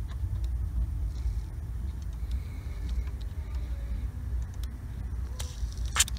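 Aerosol grease can spraying through its straw into a CD changer mechanism: a short hiss near the end, the loudest sound here, after a few faint clicks. A steady low rumble sits underneath.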